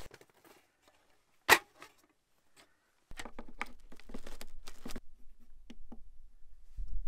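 Near silence broken by one sharp click, then a plug being pushed into the AC outlet of a Fanttik portable power station and its front-panel button pressed: a run of small plastic clicks and handling knocks.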